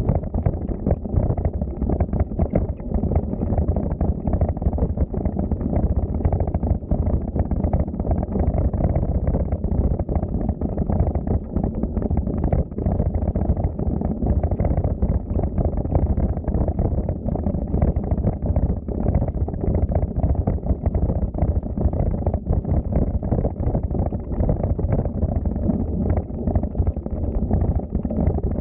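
Steady low rumble of wind buffeting the microphone on a moving bicycle, mixed with rattle from riding over the path.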